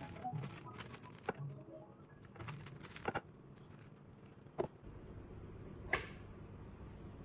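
A tea pick prying into a compressed ripe pu-erh tea cake: faint scratchy crackles and small snaps as the pressed leaves split and flake off, then a couple of single light knocks.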